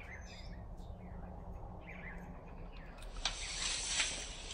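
Faint outdoor background noise with a few bird chirps, and a brief rush of hiss about three seconds in.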